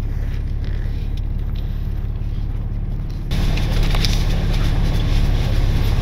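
Truck engine running with a steady low rumble, heard from inside the cab as the truck creeps forward. About three seconds in, a louder, even rushing noise cuts in suddenly and carries on over the engine.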